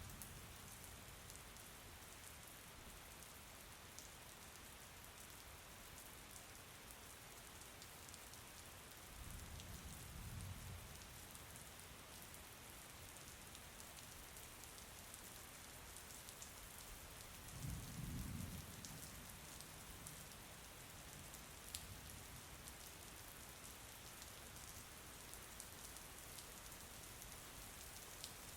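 Steady rain falling, a soft, even hiss, with two brief low rumbles, about ten seconds in and again a little past the middle.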